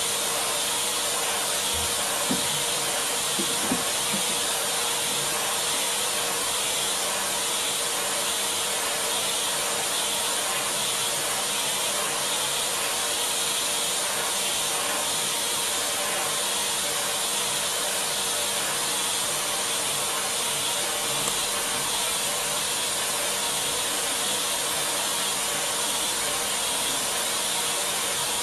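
Vacuum cleaner running steadily: an even hissing rush of air with a steady motor hum underneath.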